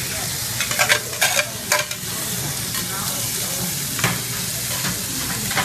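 Food sizzling on a hot teppanyaki griddle: shrimp, meat and a heap of sliced vegetables frying. A few short scrapes and clinks from a metal spatula on the steel plate, clustered about a second in and once more near four seconds.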